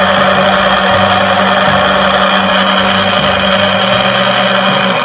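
Small electric oil suction pump running steadily, drawing engine oil out through the dipstick tube. It makes a loud, even motor hum and whine.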